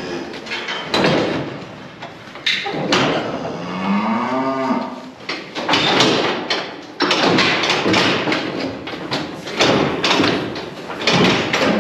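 A store bullock mooing once about four seconds in, a call of over a second that rises and falls in pitch. The steel gates and bars of a cattle crush clank and rattle repeatedly around it.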